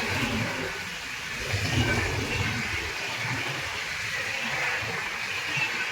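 Steady rushing noise of a passing express train, with an uneven low rumble underneath.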